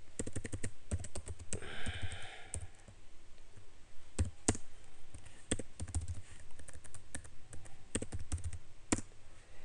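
Computer keyboard typing in quick runs of keystrokes, with pauses and a few single, sharper key presses between them.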